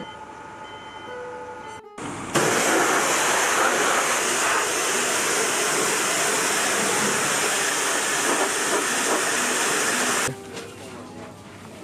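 High-pressure washer jet spraying a sailboat's hull: a loud, steady hiss that starts suddenly about two seconds in and cuts off shortly before the end.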